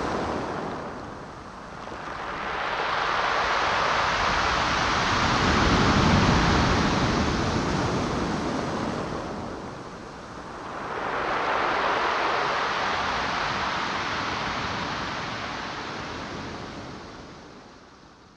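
Ocean surf: waves breaking and washing in as a rushing noise that swells and ebbs twice, slowly, then fades out near the end.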